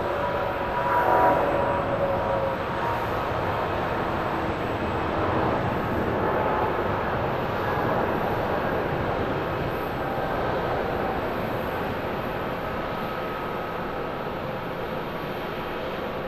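Boeing 777 twin-engine jetliner at takeoff power: a continuous jet-engine roar with a faint steady whine in it, through the end of the takeoff roll, rotation and climb-out. It slowly eases off over the last few seconds as the aircraft climbs away.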